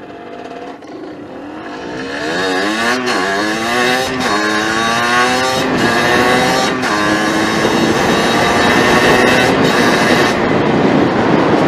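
50cc motorbike engine accelerating hard while riding off, its pitch climbing and dropping back about four times as it shifts up through the gears, then holding at high revs.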